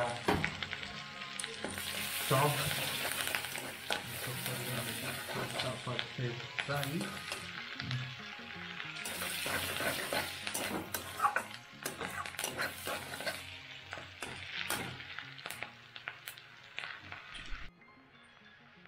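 Chopped ginger, garlic and chilli sizzling in hot oil in a steel kadai, with a metal spatula scraping and clattering against the pan as it is stirred. The sizzle drops away abruptly near the end.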